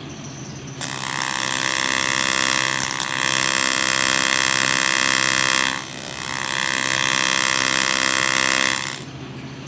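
AC TIG welding arc on aluminum, a loud steady buzz that starts under a second in and stops about a second before the end, dipping briefly about six seconds in. The welder is trying to tack a thin aluminum part to a much thicker aluminum base at 112 amps, and the base is slow to take heat.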